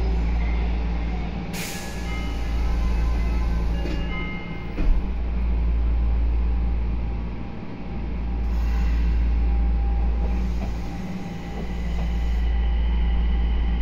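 Nagoya Municipal Subway 2000 series train running underground, heard from inside the car: a deep rumble that swells and fades about every three seconds, with faint steady tones above it. There is a sharp click near two seconds in and a brief knock about five seconds in.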